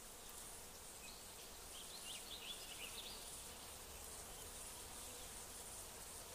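Faint countryside ambience of buzzing insects, a steady high hiss that pulses slightly, with a short run of bird chirps about two to three seconds in.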